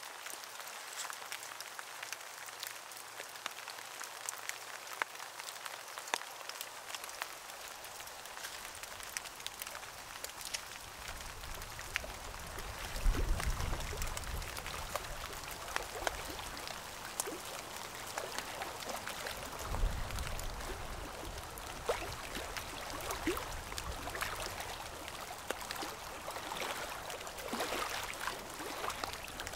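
Light rain falling: a steady hiss dotted with many small drop ticks. Two low rumbles come through near the middle, a few seconds apart.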